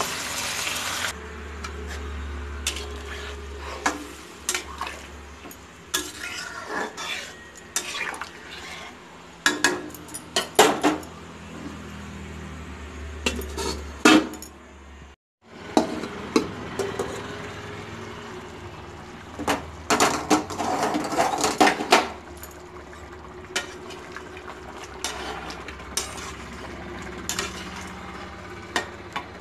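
Metal spatula stirring and scraping curry in a metal kadai, with irregular clinks and knocks of metal on the pan.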